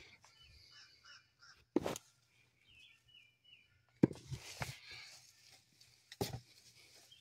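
Hands digging through loose soil in a plastic tote: rustling and scraping, with three sharp knocks, the loudest being a cluster about four seconds in. Small birds chirp repeatedly in the background.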